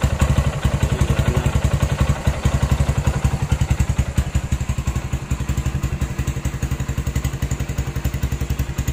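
Kawasaki Barako II's single-cylinder four-stroke engine idling through a newly fitted chicken-pipe exhaust, a quick, even exhaust beat that holds steady throughout.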